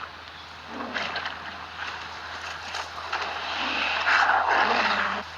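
Action-film soundtrack with vehicle-like rushing noise and a few sharp hits. It swells to its loudest about four seconds in, then cuts off abruptly just before the end.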